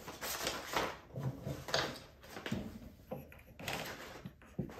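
Wooden rigid heddle loom being worked as the warp is advanced: beams turning and ratchets being released give an irregular series of wooden knocks and rubbing, scraping sounds.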